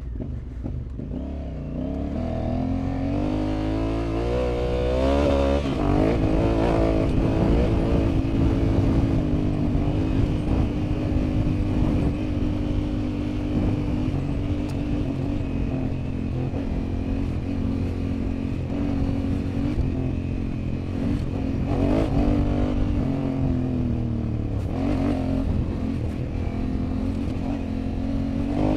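Honda Africa Twin 1100's parallel-twin engine under way off-road. It revs up over the first few seconds, then holds a steady drone, with short drops and rises in revs a little past the middle and again near the end.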